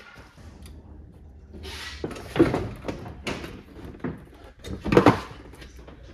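Plastic rear bumper cover of a Camaro Z28 being handled and worked loose: a run of scrapes, rattles and knocks, with two louder clunks about two and a half and five seconds in.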